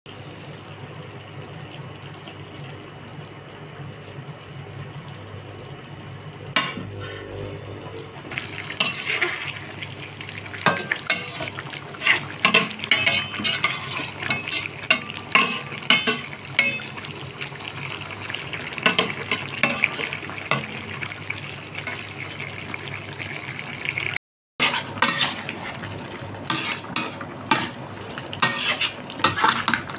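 Metal spatula stirring food in a stainless steel wok, scraping and clinking against the pan over and over, over a steady simmering sizzle. For the first six seconds or so only the simmer is heard, before the stirring starts.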